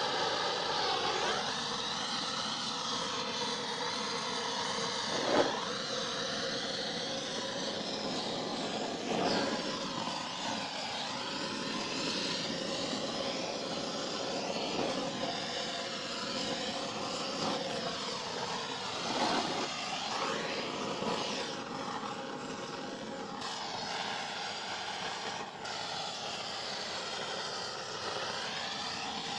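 Gas blowtorch flame burning with a steady, loud rushing hiss as it scorches the inside of a wooden beehive; the tone wavers as the nozzle is moved, with a brief louder burst about five seconds in.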